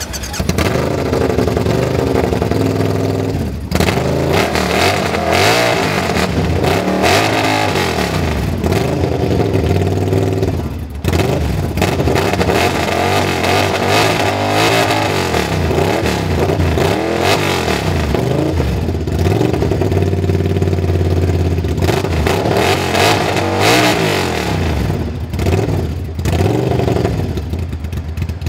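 Custom Triumph motorcycle's parallel-twin engine revved hard over and over, the pitch climbing and falling in repeated waves, with brief dips where the throttle is snapped shut about 4, 11 and 26 seconds in.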